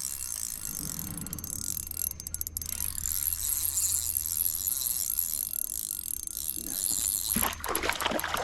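Fishing reel being cranked, a steady mechanical clicking over a constant hiss, with a louder noisy burst near the end.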